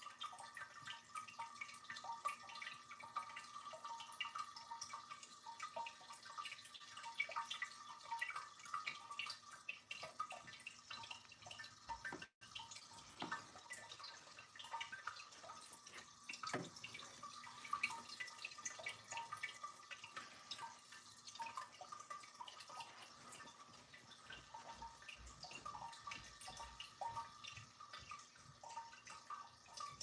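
Water trickling and dripping steadily from bowl to bowl of a small tiered ceramic tabletop fountain: a continuous patter of small drips. The sound cuts out for an instant about twelve seconds in.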